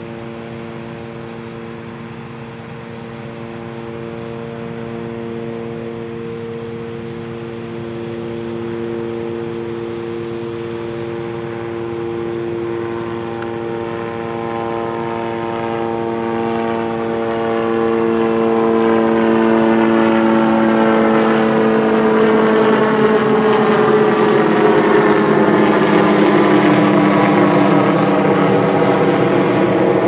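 New Holland CX820 combine harvester running as it cuts wheat: a steady machine whine made of several tones. It grows louder as the combine draws nearer, and its pitch slowly drops over the last ten seconds or so.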